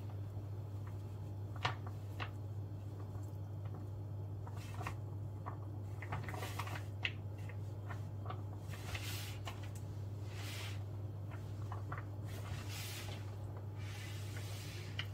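Kitchen handling sounds of pizza toppings being arranged: scattered light clicks and taps and short soft rustles, over a steady low hum.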